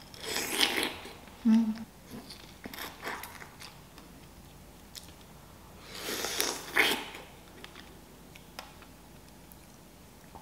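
A large, very juicy fresh strawberry being bitten into and chewed close to the microphone, in separate bites and chews. The loudest bites come about half a second in and again around six to seven seconds.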